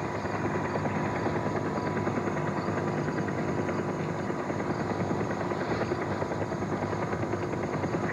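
Steady rushing noise with a fine, rapid flutter and a faint steady hum, unchanging throughout.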